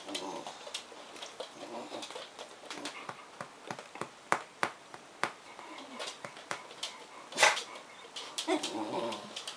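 Bedlington terrier making funny warbling, cooing whines in short bouts, with many sharp clicks, like claws on a tiled floor. One loud, sharp sound comes about seven and a half seconds in.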